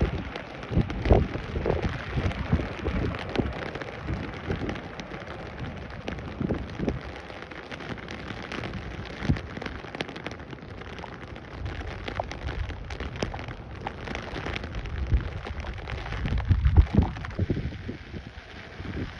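Wind buffeting the microphone in irregular gusts, with rain pattering and scattered sharp ticks of drops.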